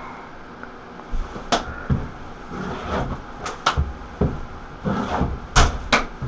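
Irregular knocks and thumps of a person scrambling up and dropping back down inside a bathtub-shower. About a dozen hits start about a second in, some sharp and some dull.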